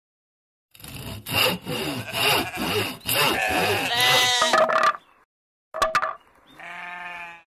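Logo sound effect: a hand saw cutting wood in repeated back-and-forth strokes, then a sharp click, then a sheep bleating near the end.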